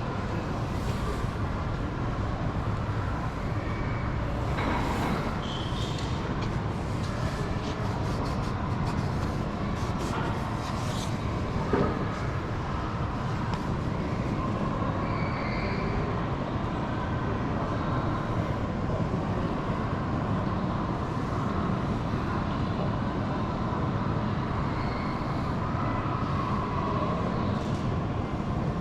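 Steady vehicle running noise, a continuous low rumble with a single short knock about twelve seconds in.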